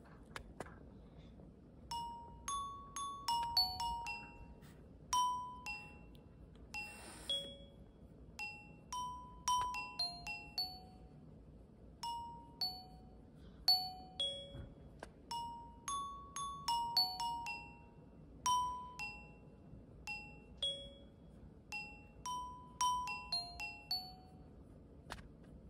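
Background music: a slow, gentle melody of single bell-like struck notes, in the manner of a glockenspiel, each note ringing briefly and fading.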